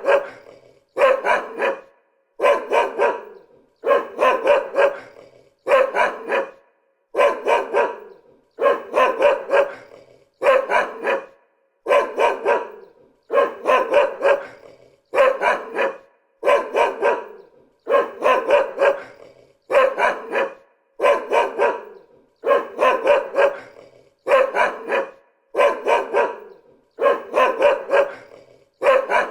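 Dog barking over and over in short bursts of two or three barks, about one burst a second, at an even, unbroken pace.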